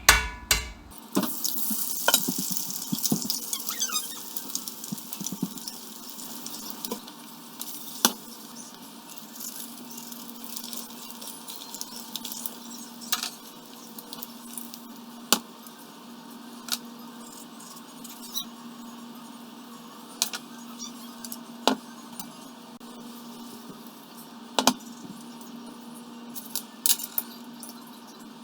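Eggs frying in hot fat in a cast iron pan: a sizzle that starts strong about a second in and settles after a few seconds, with sharp pops of spattering fat every second or two.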